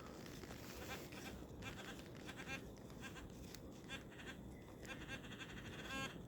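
Faint bleating animal calls, repeated several times, the clearest about six seconds in.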